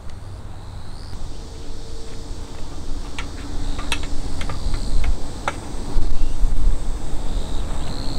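Outdoor ambience dominated by wind rumbling on the microphone, with several sharp clicks or taps around the middle.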